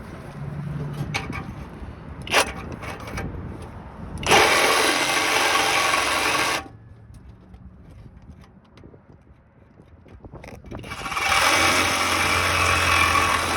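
Power tool cutting into the pipe that holds the exhaust muffler on, in two runs of about two and three seconds, with knocks and rattles between and a sharp knock a couple of seconds in.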